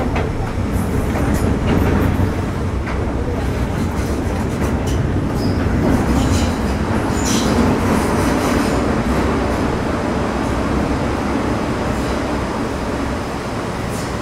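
MTR Metro Cammell M-Train (CM-Stock) heard from inside the car while running between stations: a steady rumble of wheels on track, broken by sharp clicks from rail joints and brief high squeals near the middle.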